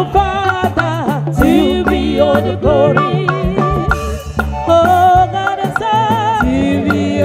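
Live gospel band music: women's voices singing with wavering pitch into microphones, over a stepping bass line and a drum kit, played through a PA.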